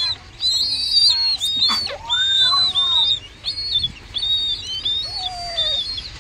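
Downy white bird chicks peeping repeatedly, high thin calls several a second, begging as they are fed from a syringe. A lower, gliding call sounds about two seconds in and again about five seconds in.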